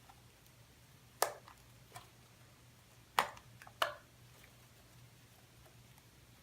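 Fluffy slime made with shaving cream being poked and squeezed by hand, giving a few sharp clicks and pops of trapped air. The three loudest come about a second in and around three and four seconds in, over a faint steady hum.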